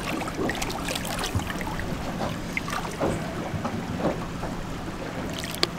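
Water lapping and splashing lightly at the side of a boat as a paddlefish moves at the surface, in irregular small sloshes, with a sharp tap near the end.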